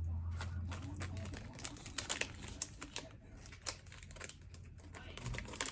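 Light, irregular clicks and taps of small items and packaging being handled, with a low hum that fades out about a second and a half in.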